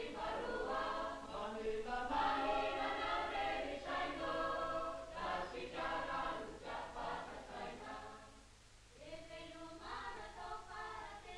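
A group of voices singing a song together in choir. It fades to a near pause about eight seconds in and then goes on more softly.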